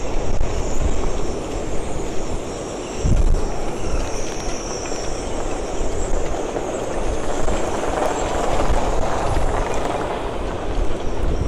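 Storm-force wind roaring across a marina and buffeting the microphone in gusts, with a high, wavering whistle from the wind in the moored sailboats' rigging.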